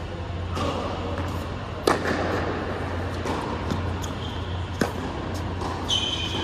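Tennis rally on an indoor hard court: a ball struck by rackets, with two sharp hits about three seconds apart and lighter ball bounces and footsteps between, echoing in the hall over a steady ventilation hum. A short sneaker squeak on the court near the end.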